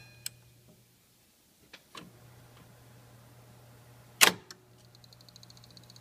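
Teac A-4010GSL reel-to-reel tape deck's transport mechanism clacking: several sharp mechanical clicks, the loudest about four seconds in, from the pinch-roller solenoid and its arm, over a steady low hum that drops out for about a second. Near the end a fast, even high ticking starts.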